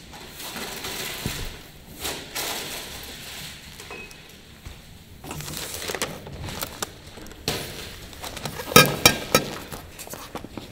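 Irregular handling noises of food-factory work: scattered knocks and rustling, with a quick rattle of sharp clicks about nine seconds in.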